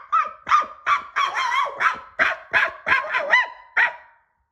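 Puppy barking excitedly, a quick run of about a dozen short, high-pitched yaps.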